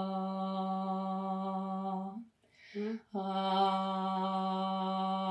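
A woman singing one steady held note on an open 'a' vowel, pitched at her ordinary speaking tone, the middle of her vocal range. The note breaks off for a breath a little after two seconds in, then picks up again on the same pitch.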